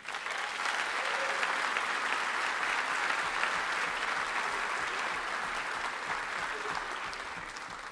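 A large audience applauding, clapping that starts right away and fades out near the end.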